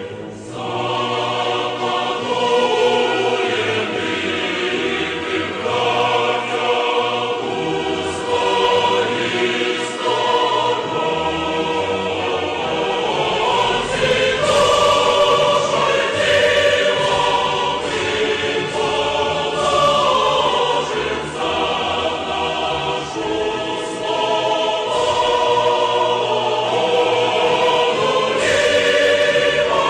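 Choral music: a choir singing slow, held notes that change every second or two.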